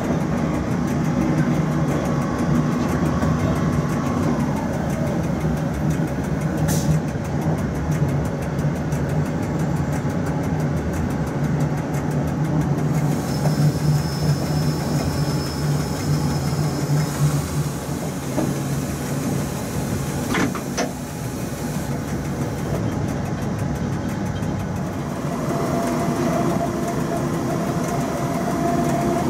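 Cab noise of a Rhaetian Railway Ge 6/6 II electric locomotive hauling a freight train: a steady hum of the running locomotive and its wheels on the rails. Two sharp clicks come through it, and a humming tone comes in near the end.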